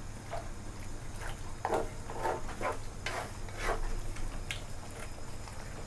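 A utensil stirring and scraping in a pot of simmering pork panang curry with coconut cream, in short irregular scrapes and knocks, over a steady low hum.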